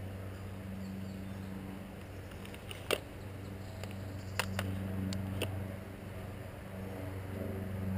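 A steady low hum, with four short sharp clicks: one about three seconds in and three more over the next two and a half seconds.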